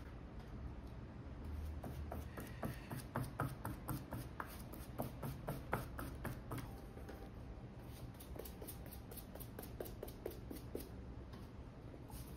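A brush scrubbing and dabbing glue onto a rubber shoe sole: a quick run of short scratchy strokes and taps. The strokes are loudest and busiest in the first half and grow softer later on.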